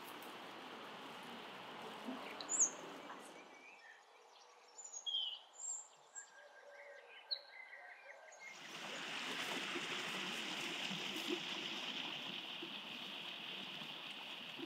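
Faint outdoor ambience: a steady rushing hiss, which drops away for a few seconds in the middle, leaving scattered bird chirps, and then comes back.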